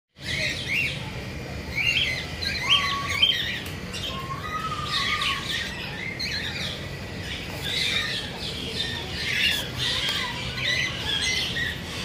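A flock of cockatiels chirping and calling without pause: many short overlapping chirps, with a couple of longer whistled notes.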